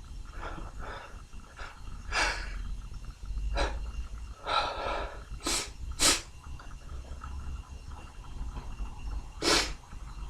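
A man's sharp sniffs and breaths through the nose, then two explosive sneezes in quick succession about halfway through and one more loud sneeze near the end.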